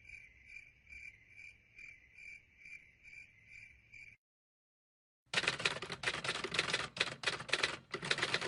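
Cricket chirping sound effect: a steady, even chirp repeated about two to three times a second, which stops about four seconds in. After a second of silence, the next effect starts, a rapid run of loud, harsh, noisy strokes.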